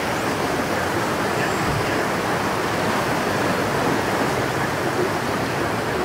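Steady, even rush of the fast-flowing, turbulent Victoria Nile.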